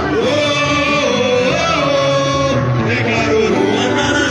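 Samba-enredo from a samba school's parade: a lead singer holding long sung notes over the school's band and percussion, playing continuously.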